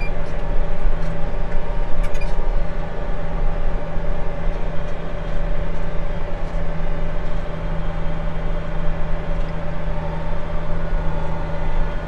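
Tractor's diesel engine running at a steady speed, heard from inside the cab as a constant drone, with a brief clatter about two seconds in as it drives over rough ground.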